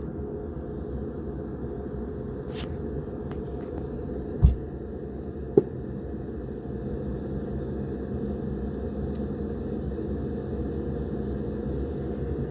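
Hcalory Toolbox Max diesel heater's fan running steadily with a low whir while the heater comes up through its glow-plug start-up. Two sharp knocks about a second apart just before the middle.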